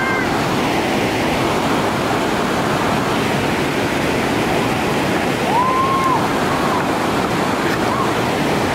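Whitewater rapids rushing steadily, an even loud noise of churning water. About six seconds in, a short high call rises and falls over it, with fainter ones after.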